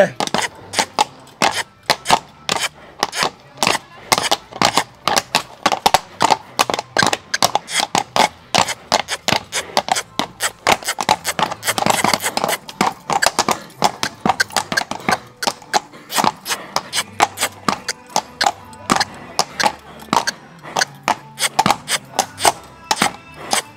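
Rapid, irregular clatter of a horse's hooves striking a hard floor, several strikes a second, as a trained dancing horse steps and stamps in place.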